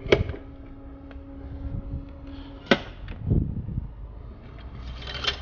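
Hands working among plastic parts on top of a diesel engine: two sharp clicks about two and a half seconds apart, then a low thud and a brief scraping rustle near the end.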